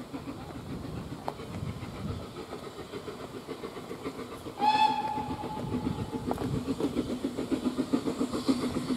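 Steam locomotive whistle blown once, a single steady note lasting about a second and a half, starting about halfway through and sounded at a whistle board as the locomotive approaches. Under it is a low steady rumble with a rhythmic beat that grows louder toward the end.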